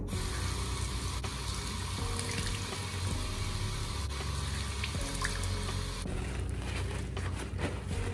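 Water running from a bathroom tap into the sink, starting abruptly as the tap is turned on, with hands being washed under the stream.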